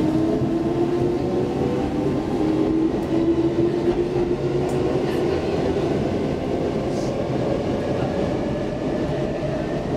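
Interior of a Stockholm metro C14 subway car running as it pulls away from a station into the tunnel: a steady rumble of wheels and running gear with humming motor tones that slowly shift in pitch.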